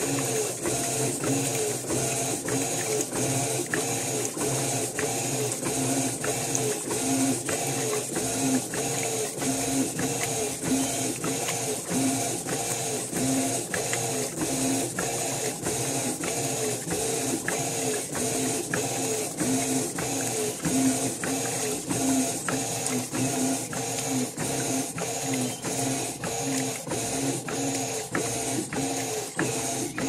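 Electrolux 12 kg top-loading washing machine in its agitation cycle: the agitator drives the clothes back and forth through the water with a steady rhythmic mechanical churning, about two strokes a second.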